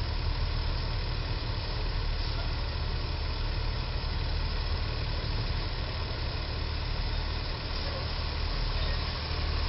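Truck engine running steadily at low revs, a continuous low rumble, while a box truck reverses slowly away from a low bridge.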